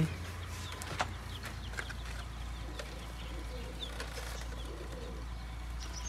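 Faint farmyard bird sounds: scattered short chirps, with a soft low cooing like pigeons about four to five seconds in. A single sharp click comes about a second in.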